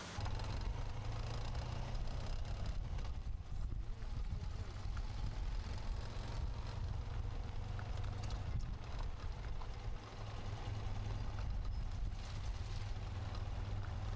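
Low, uneven rumble of a car on the move, recorded from inside it.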